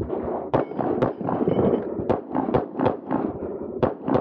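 Competition handgun fired during an IPSC course of fire: about eight sharp shots in quick succession, some in close pairs a quarter to half a second apart.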